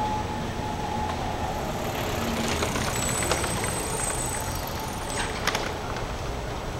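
Outdoor urban traffic noise: a steady rumble of passing vehicles, with a thin high squeal from about two and a half to five seconds in and a couple of sharp clicks about five and a half seconds in.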